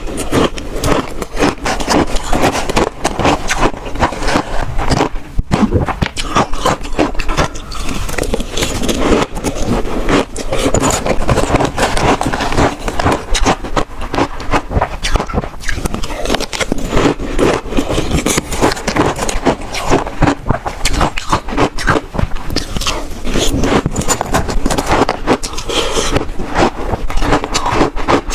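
Close-miked biting and crunching of shaved ice, a dense unbroken run of crisp crunches and crackles.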